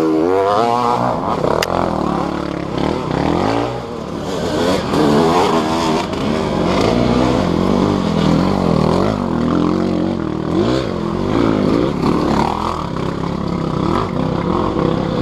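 Dirt bike engines running and revving up and down, with a sharp crack about a second and a half in.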